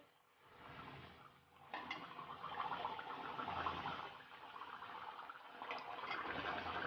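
Hot oil sizzling and crackling around a dough cup deep-frying on a steel bowl, as the cook ladles oil over it. The sizzling comes in about a second and a half in, after a near-silent start.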